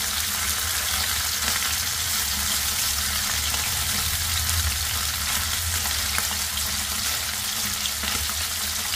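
Small pothi fish being lightly shallow-fried in mustard oil in a kadai: a steady, dense sizzle with fine crackles while the fish are turned in the pan. A low steady hum runs underneath.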